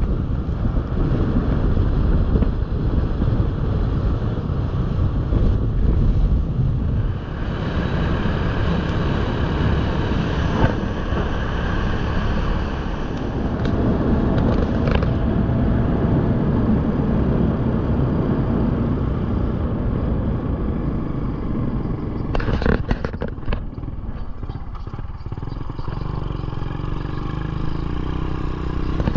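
Motorcycle being ridden along a road: the engine runs under steady wind rush on an action camera's microphone. A few knocks and rattles come about three quarters of the way through.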